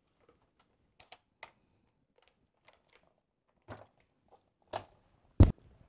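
Scattered light clicks and taps of a plastic RC stunt tank's body and tracks being handled and turned over by hand, with one sharper knock about five and a half seconds in.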